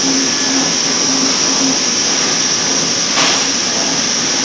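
UV coating machine running steadily: a constant high-pitched hiss over a mechanical whir, with a brief whoosh about three seconds in.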